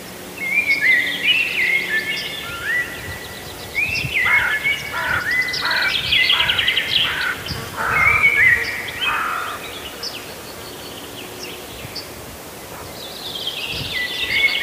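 Songbirds chirping and trilling, many short rising and falling notes overlapping one another, busiest in the middle.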